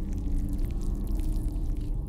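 Soft background music: held low notes over a steady deep rumble, with a few faint clicks.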